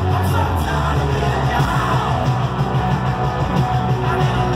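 Live rock band playing loud, with electric guitar, bass and drums, and the singer's voice over the band.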